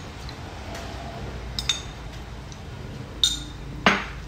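Metal ladle clinking against the side of a stainless steel soup pot: a couple of light clinks about a second and a half in, a ringing clink a little after three seconds, and a louder knock near the end.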